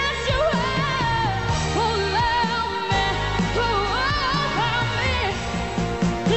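Pop song sung by a solo voice with vibrato and quick melodic runs, over an instrumental backing.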